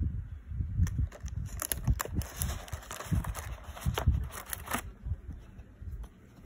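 Clear plastic film on a takeaway meal tray crinkling and crackling as the tray and its cardboard sleeve are handled, for about four seconds from a second in, over low bumps of handling noise.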